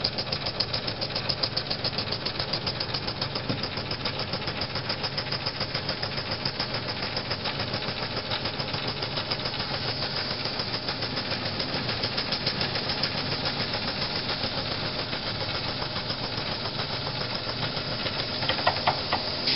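J. Falk 145 toy steam engine running under steam: a steady hiss of steam with an even rhythmic beat of a few strokes a second. A few sharp clicks come near the end.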